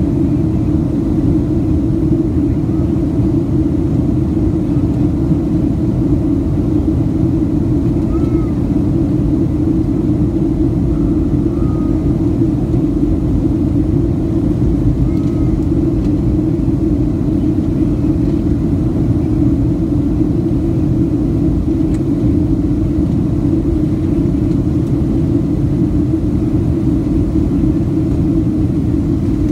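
Steady cabin noise of a Boeing 737 airliner in descent: the jet engines and the rush of air past the fuselage make one unbroken roar, heaviest in the low range.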